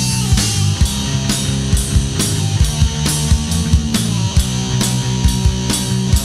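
Heavy metal band playing an instrumental passage on a 1990s demo recording: guitars and bass over a drum kit keeping a steady beat, with no vocals.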